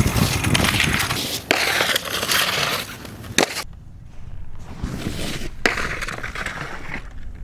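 A snowboard sliding and scraping over snow and a concrete ledge, a coarse hiss with three sharp knocks from the board.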